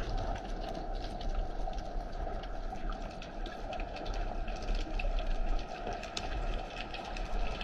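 Underwater ambience as picked up by a camera submerged on a rocky reef: a steady hiss and low rumble with dense, irregular crackling clicks throughout.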